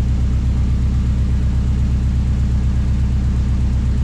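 Turbocharged Subaru engine idling steadily, a low even rumble with a fine regular pulse.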